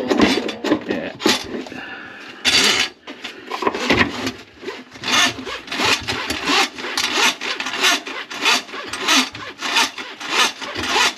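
Drain snake cable scraping and rasping through a kitchen sink drain line clogged with grease. It comes in repeated strokes, irregular at first, then settling into a quick rhythm of about two to three a second.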